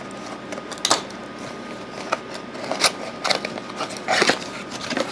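A blade slitting the packing tape on a cardboard box and the cardboard flap being worked open: a series of short, sharp scrapes and rips, the longest about four seconds in.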